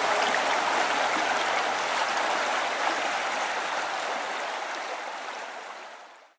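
Creek water flowing, a steady hiss of moving water that fades out over the last couple of seconds.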